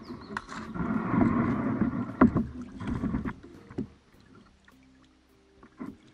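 Canoe being paddled: water splashing and rushing, with a few sharp paddle knocks. It cuts off abruptly about four seconds in, leaving near silence.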